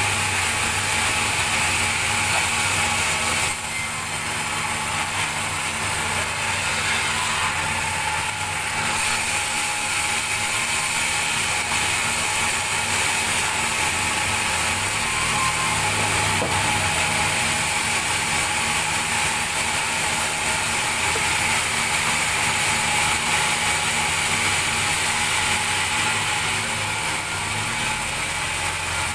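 Large band sawmill running steadily as its blade cuts lengthwise through a big log: a continuous hiss of sawing over the machine's low hum.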